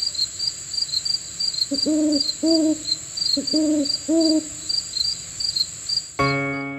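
An owl hooting four times in two pairs over a steady background of crickets chirping. Near the end, gentle tinkling music begins.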